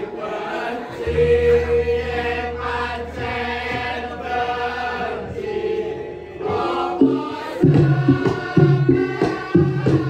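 Javanese gamelan music for a lengger dance: voices singing over the ensemble, a deep gong ringing from about a second in, and quick drum strokes in the last few seconds.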